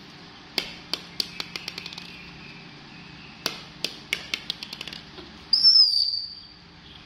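Quick runs of sharp clicks and taps, as of a baby monkey handling and eating food. About five and a half seconds in comes a short high-pitched squeak, falling slightly in pitch. The squeak is the loudest sound.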